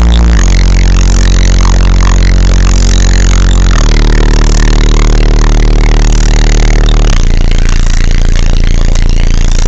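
Deep bass from two Kicker L7 15-inch car subwoofers driven by a Kicker KX2500.1 amplifier at full power, heard inside the car's cabin. The bass line is long held notes that step abruptly to a new pitch every three to four seconds, loud enough to overload the recording.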